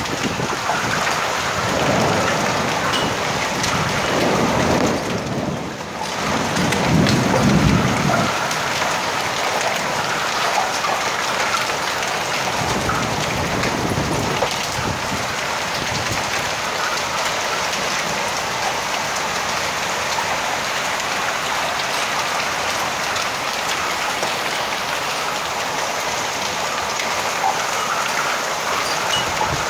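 A heavy downpour mixed with hail beats steadily on the street and balcony in a dense, even hiss. Low rumbles swell and fade about two, seven and fourteen seconds in, the loudest around seven seconds.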